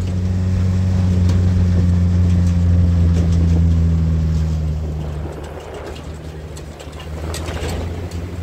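A vehicle engine running with a steady low hum that fades away about five seconds in, leaving a quieter rumble with a few light clicks near the end.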